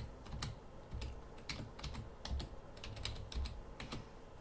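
Typing on a computer keyboard: a quiet run of irregular key clicks, several a second.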